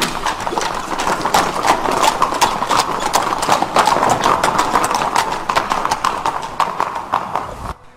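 Hooves of several horses clip-clopping quickly and unevenly on stone paving as a mounted procession passes. The sound cuts off abruptly near the end.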